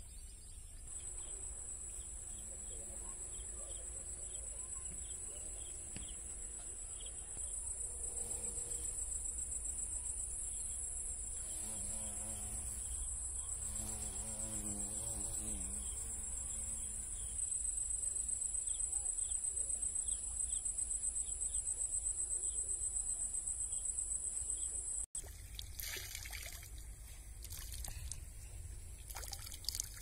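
Steady, high-pitched buzzing of insects, with faint distant voices in the middle. It stops abruptly near the end, where a few short bursts of noise follow.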